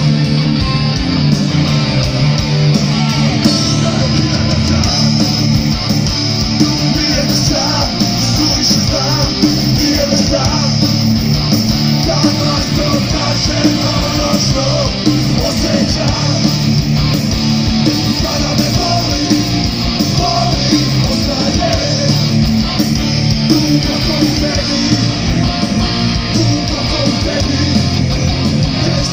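Loud live rock band playing: distorted electric guitars, bass and drums at a steady, driving beat.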